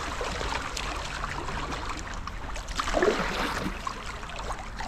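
River water splashing and trickling around a kayak on a moving river, with a louder splash about three seconds in.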